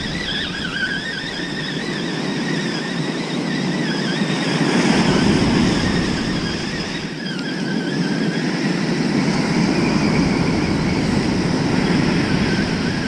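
Surf breaking and wind rushing over the microphone, swelling and easing, with the thin wavering whine of a spinning reel's gears being cranked as a hooked fish is reeled in; the whine pauses for a few seconds mid-way.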